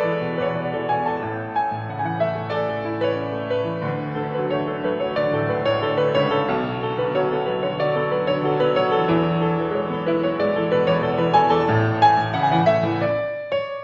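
Background music led by piano, notes following one another in a steady melody; it breaks off briefly near the end.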